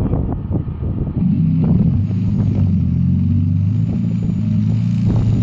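Electric hammer drill starting about a second in and hammering steadily into solid rock, with a low, steady engine-like drone from the portable generator powering it.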